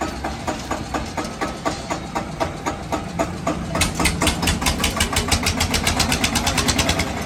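Mahindra tractor's diesel engine running at a slow, knocking beat, then revving up about four seconds in to a faster, louder beat, and dropping back right at the end.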